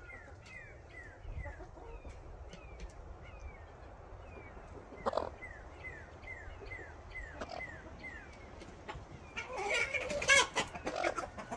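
Chickens clucking and squawking loudly near the end, over a steady run of short, falling peeps that repeat about three times a second.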